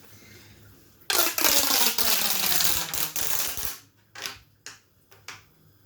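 Corrugated plastic fidget tube (twister tube) being stretched out: a rapid crackling run of clicks lasting about two and a half seconds, followed by a few single clicks.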